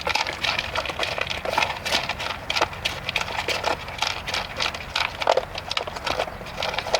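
A dog eating from a bowl: rapid, irregular crunching and clicking of chewing.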